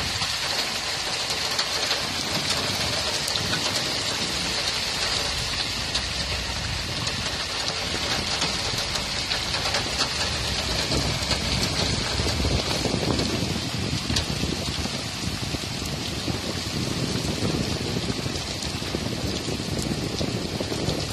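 Heavy rain pouring down steadily on the ground and foliage, a dense hiss of a downpour, with a low rumble rising and falling beneath it.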